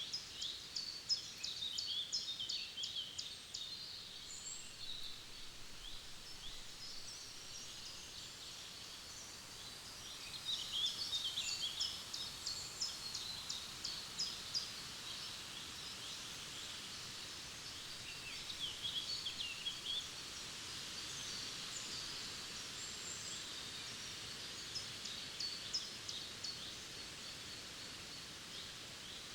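Forest songbirds singing in bursts of rapid, quick-falling trills, several times over, against a steady background hiss.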